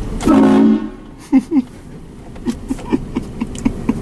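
Vehicle-mounted train horn giving one short, loud blast of about half a second, just after the start.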